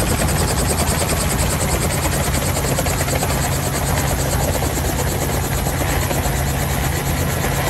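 Robinson R44 helicopter running on the ground with its main rotor turning: its six-cylinder Lycoming piston engine and rotor make a steady low hum with a fast, even beat.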